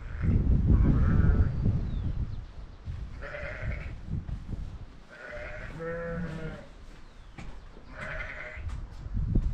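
Sheep bleating, about four separate calls a couple of seconds apart, the third one deeper than the others. A low rumbling noise is loudest in the first second or so.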